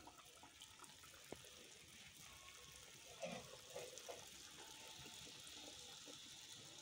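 Hot oil sizzling faintly and steadily as rounds of rice-flour and jaggery dough (arsa roti) deep-fry in a kadhai, the oil foaming around them. A few faint soft knocks come about halfway through.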